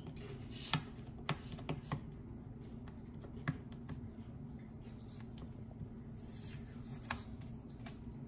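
Scattered sharp clicks and taps of fingernails on the air fryer's plastic housing while picking at a blue protective tape tab, over a steady low hum.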